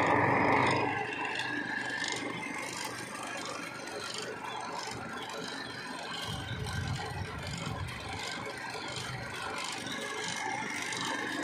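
Hand-cranked cotton candy machine running: the crank wheel and drive spinning the heated spinner head, a steady whirring with light rattling and scraping.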